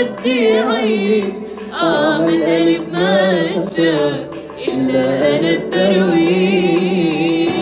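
A woman singing an Arabic love song, drawing out ornamented notes that waver and bend in pitch.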